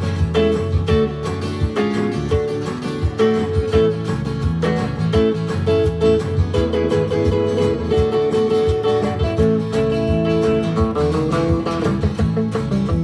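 Acoustic guitar, a second guitar and keyboard playing an instrumental country tune together, with a steady strummed rhythm and held melody notes over it.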